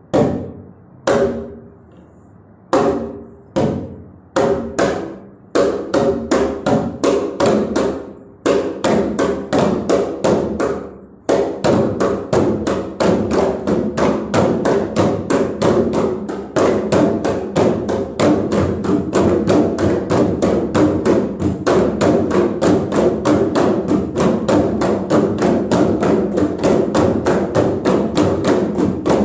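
A group of gendang pampat drums played together. It opens with single unison strokes about a second and a half apart, each with a short ring. A few seconds in the strokes come faster, and about eleven seconds in they settle into a fast, steady, dense rhythm.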